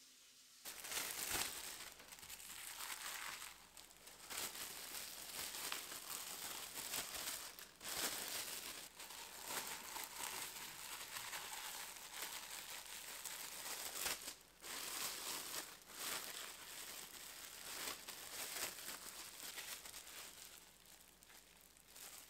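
Plastic bag crinkling and rustling as it is handled, with brief pauses about 4, 8 and 14 seconds in.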